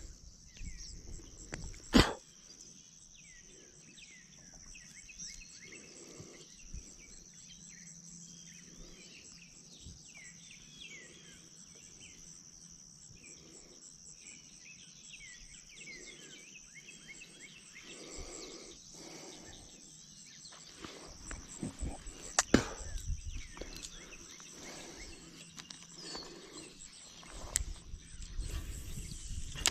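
Birds chirping in short falling calls over a steady high insect drone. A sharp knock comes about two seconds in, and a louder one about twenty-two seconds in, with a few soft thumps near the end.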